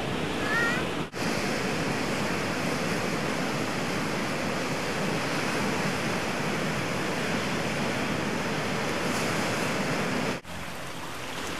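Ocean surf breaking against rocks: a steady rushing wash of noise, cut off briefly about a second in and again near the end.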